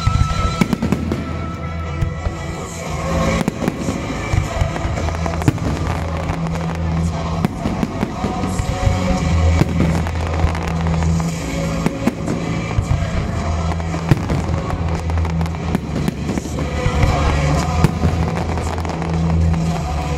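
Aerial fireworks bursting in a dense run of bangs and crackling stars, with music playing alongside.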